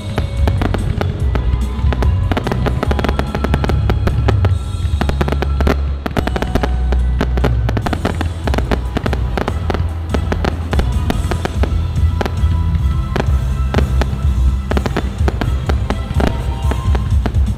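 Fireworks display going off nonstop: a rapid, dense run of bangs and crackles over a continuous low booming, with music playing underneath.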